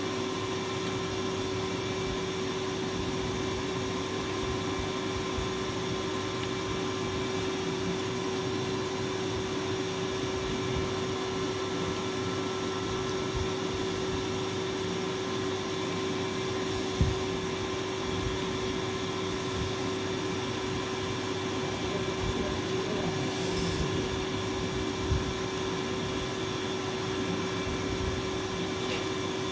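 A steady machine hum and hiss with one constant mid-pitched tone, and a few soft low knocks, the loudest about halfway through.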